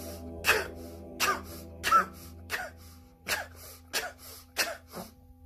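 A man forcing air out through his mouth in short, sharp puffs, about eight in a row, growing weaker toward the end, to empty his lungs completely in a breathing exercise. A faint, steady musical drone runs underneath.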